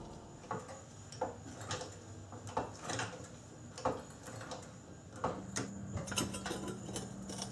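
Scattered light clicks and knocks, like metal tools or equipment being handled, over a faint steady hum. A steady low tone joins about five seconds in.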